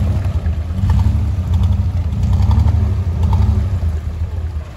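Longtail boat's stern-mounted engine running, driving a propeller on a long shaft as the boat pulls away from shore. Its note swells about halfway through and drops near the end as the boat moves off.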